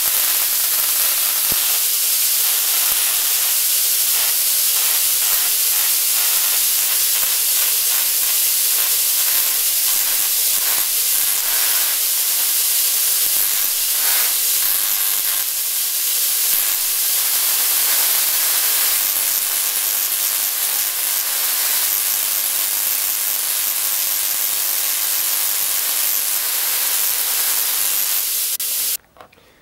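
Homemade Tesla coil running and throwing sparks from its topload: a loud, continuous hiss with a steady hum beneath it. It cuts off suddenly just before the end.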